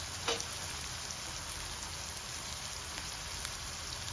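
Bitter gourd slices sizzling steadily in hot oil in an iron kadhai, with one short tick just after the start.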